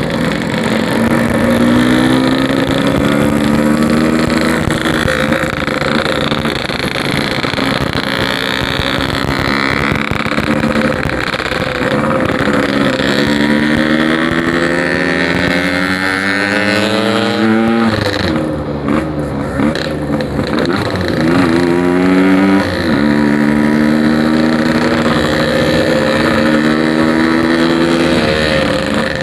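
Yamaha RX-King two-stroke single-cylinder motorcycle engine running under way, its pitch climbing as it accelerates and dropping at each gear change several times, with a short lift-off a little past halfway.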